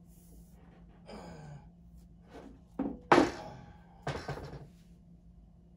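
Knocks and clunks of the black metal desk-frame leg and bracket being handled and set against each other, the loudest a sharp knock about three seconds in, with another clunk about a second later.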